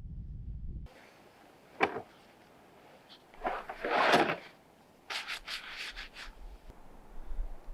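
Crunching and scraping in deep, wet snow. There is a single short scrape, then a longer swish, then a quick run of about five crunches.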